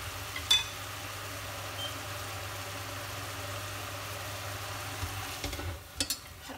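Steady mechanical hum under the faint cooking of sweet potato greens in a stainless steel pot, with one sharp click about half a second in. Near the end come a few quick knocks as the pot is gripped and chopsticks strike its side.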